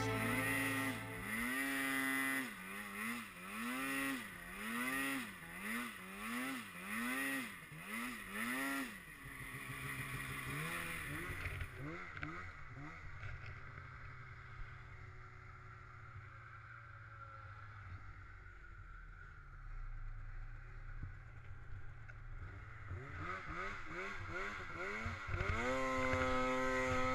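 Polaris snowmobile's two-stroke engine being revved in quick repeated throttle blips, about one and a half a second, then running quieter and lower for a while before revving back up to a high, steady pitch near the end.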